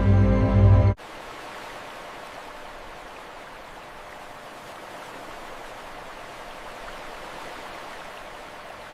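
Background music cuts off abruptly about a second in, leaving a steady, even hiss with little bass, like running water or rain, at a lower level.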